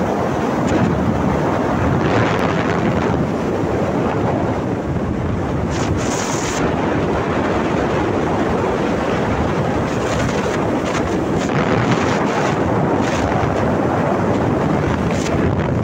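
Steady rushing wind noise on the microphone of a phone filmed from a moving car, with road and car noise mixed in.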